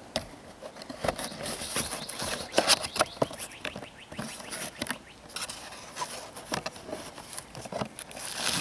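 Handling of a new fuel filter's packaging: rustling with rapid, irregular clicks and taps.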